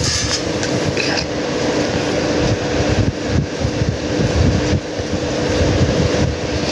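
Steady rushing noise with gusty low rumble and a faint steady hum.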